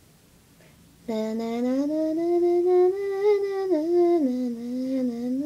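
A person humming a wordless tune in one unbroken line, starting about a second in, the pitch wandering up and down with a drop about four seconds in.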